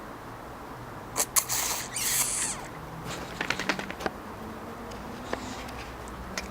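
A boxer puppy and a teacup Yorkshire terrier scuffling in play: two brief rustling, scrabbling bursts, then a run of quick clicks and pattering, like paws and claws skittering.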